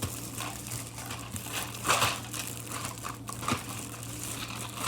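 Crinkly plastic candy packaging rustling and crumpling as it is handled, in irregular bursts, loudest about two seconds in.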